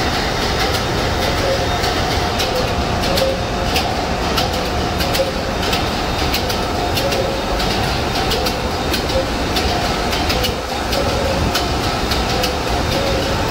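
Container ship's main engine, a large slow-speed two-stroke marine diesel, running at sea, heard up close at its cylinder tops: a loud, steady engine-room din with a constant clatter of quick clicks.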